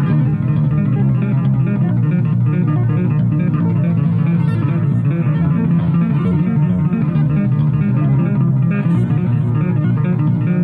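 Instrumental rock guitar: an electric guitar playing a fast run of notes, mostly in a low register, with bass guitar under it.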